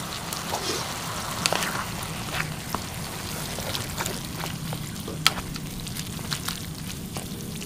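Stir-fried water spinach bubbling and sizzling in a soot-blackened wok over a wood fire while it is stirred with a wooden stick, with scattered sharp crackles and ticks through the steady sizzle.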